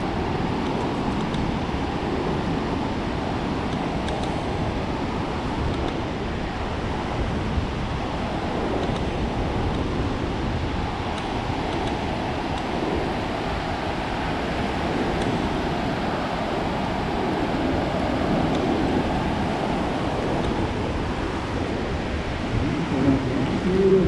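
Pacific Ocean surf breaking and washing up a sandy beach in a steady rush that swells gently now and then, with a few brief louder sounds near the end.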